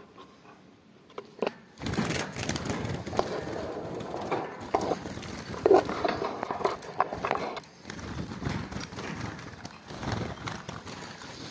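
Handling noise from a phone brushed and knocked against the wire bars of a goldfinch cage. It is fairly quiet for about two seconds, then runs on as steady rustling with scattered light clicks and knocks.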